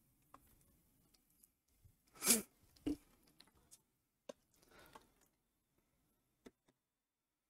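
Sparse handling noises of a graphics card being let go of on a desk mat: a short swish about two seconds in, a dull knock just after, then a few light clicks and a faint rustle.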